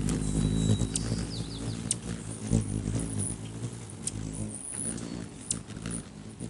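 Rufous hummingbirds hovering right at the microphone: the low, wavering hum of their wings. Over it come sharp high chip calls about once a second, with a short burst of squeaky chatter about a second and a half in.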